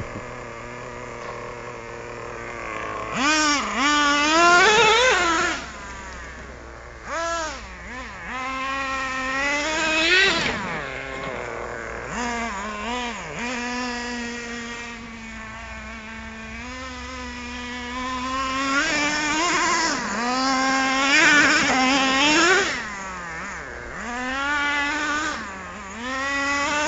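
Traxxas T-Maxx RC monster truck's small two-stroke nitro engine buzzing, its pitch rising and falling repeatedly as the throttle is worked, with steadier, lower stretches between bursts of revving.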